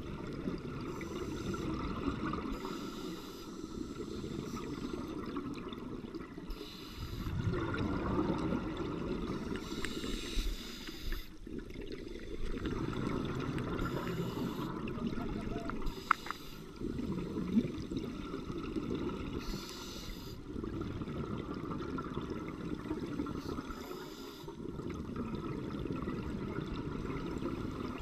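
Scuba divers' breathing heard underwater: exhaled bubbles gurgling in bursts a few seconds long with quieter breaks between, plus a couple of sharp clicks near the middle.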